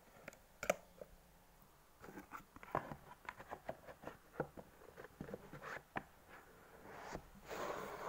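Hands handling a plastic storage box and sticker sheets: a run of light clicks and taps with some rustling, then a short swish near the end.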